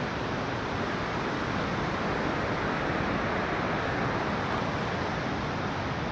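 Steady rushing of river water, an even noise with no breaks or strokes.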